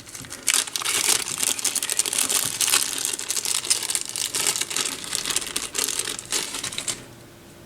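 A plastic parts bag crinkling and rustling as it is handled. The crackling is dense and irregular and stops about seven seconds in.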